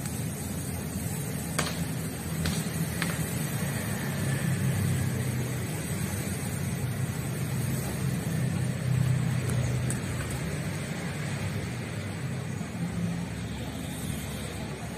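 Steady low rumble of outdoor background noise, with a few sharp clicks about two to three seconds in.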